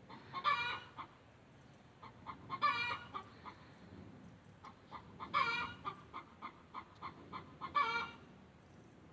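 Domestic hen calling to be let out: four loud, drawn-out squawks about every two and a half seconds, with short clucks in between.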